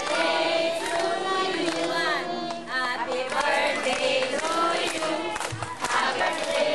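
A group of people singing together, many voices at once.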